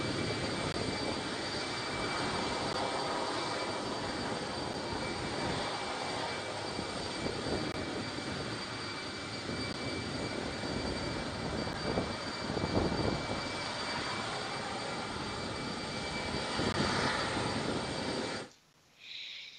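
Jet engines of an Antonov An-124 cargo plane running on the ground: a continuous rushing noise with a steady high whine. The sound cuts off suddenly near the end.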